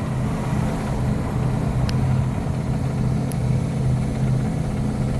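International box truck engine pulling under light throttle, heard from the cab as a steady low drone. The engine is warm and has a misfire that makes it cough and sputter above about 1500 rpm.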